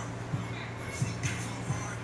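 Music with a steady beat: repeated low kick-drum thumps under cymbal-like swishes.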